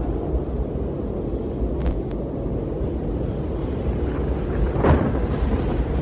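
Strong wind blowing, a steady low rumble with a louder gust about five seconds in.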